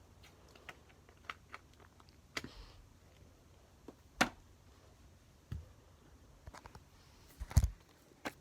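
Slime being handled close to the microphone, making scattered sticky clicks and small pops, with two louder pops about four and seven and a half seconds in.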